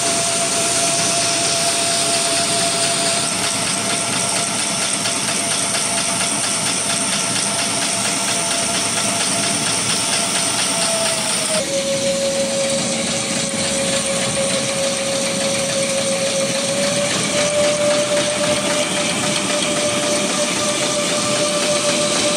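Dental bib and napkin making machine running: a steady mechanical clatter with a whine over it. The whine drops in pitch a little over halfway through, then rises slightly again a few seconds later.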